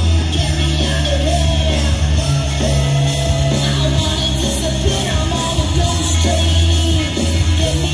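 Rock-style music with a singing voice over a steady low bass line.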